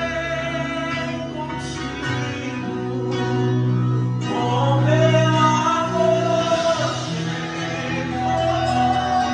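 Live gospel worship music: electronic keyboard playing held chords under singing voices in a slow hymn.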